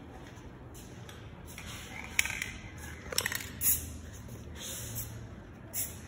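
Aerosol spray can of clear coat hissing in several short bursts, each about half a second long.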